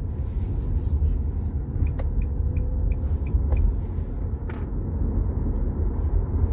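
Steady low rumble of road and engine noise inside a moving car's cabin, with a short run of faint, quick high ticks about a second and a half in.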